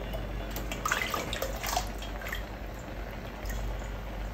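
Pot of beans boiling hard, bubbling, with a few splashes and drips between about one and two and a half seconds in as liquid runs off a spatula of beans held over the pot. A low steady hum runs underneath.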